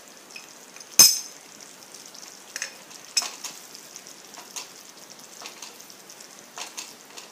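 A steel spoon gives a sharp clink about a second in as coriander powder is tipped into the pan. After that, a wooden spatula stirs the thick cashew-and-onion gravy cooking on low heat, with a soft scrape every half second to a second over a faint sizzle.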